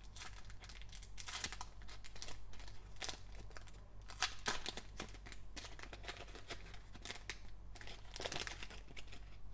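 Foil wrapper of a Panini Optic trading-card pack being torn open and crinkled by gloved hands: irregular crackling and tearing, with several louder flurries.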